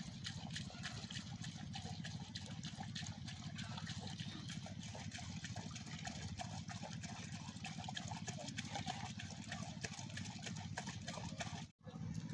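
Water splashing and dribbling as hands scoop fish fry out of a net gathered in shallow water, a dense crackle of small splashes over a steady low hum; the sound cuts out for an instant near the end.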